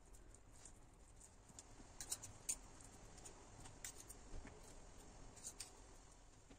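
Faint clicks and light scraping of a metal knife and spoon against a plate as cream cheese is spooned and spread over an omelette, with a few sharper clicks, the loudest about two seconds in.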